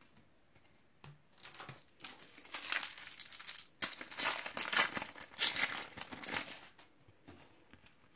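A shiny foil Panini trading-card packet being torn open and crinkled by hand. The crinkling comes in several bursts, starting about a second in and dying away about seven seconds in.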